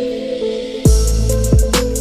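Electronic background music with sustained synth notes; deep bass drum hits come in just under a second in.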